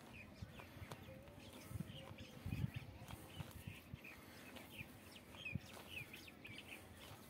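Small birds chirping in short, repeated calls, over soft low thumps and rustling of a hand kneading dry bran-and-flour bait mix on a plastic sack. The loudest thump comes about two and a half seconds in.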